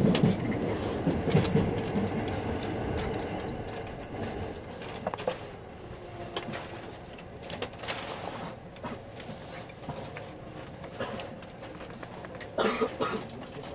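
Inside a moving E657-series limited-express train: the rush of a train passing close on the next track fades over the first few seconds into steady running noise with scattered light clicks from the wheels and car. A louder knock comes near the end.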